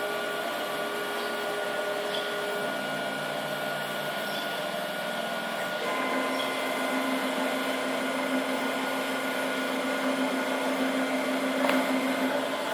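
CNC engraving machine homing, its stepper motors humming as the axes drive back to the origin, over a steady whirring. The hum jumps to a new steady pitch about three seconds in and again about six seconds in, as different axes take over.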